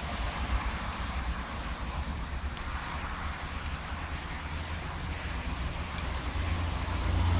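Steady low rumble with an even hiss over it: wind buffeting the camera microphone, growing louder near the end.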